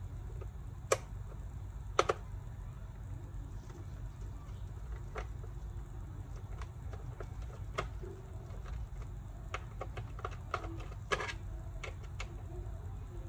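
Scattered clicks and taps of hand tools and plastic parts as a laptop's case is unscrewed and pried apart, over a steady low hum. The sharpest clicks come about a second in, at two seconds, and near the end.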